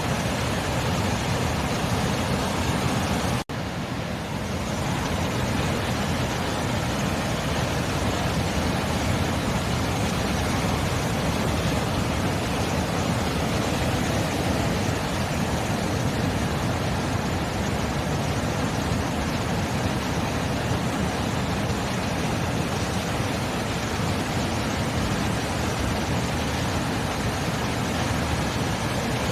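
Continuous sea surf, a steady even wash of waves with no distinct breaks standing out. The sound drops out for an instant about three and a half seconds in and comes back slightly softer, building up again within a second or two.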